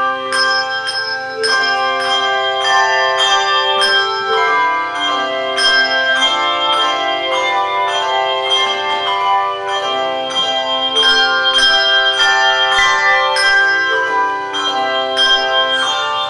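A handbell choir playing a piece: many tuned handbells struck in turn and together, each note ringing on and overlapping the next in a resonant hall.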